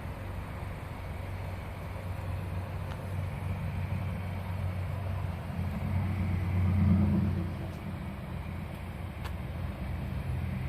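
Low, steady car engine rumble that swells to its loudest about seven seconds in and then eases back, like a vehicle running close by or passing.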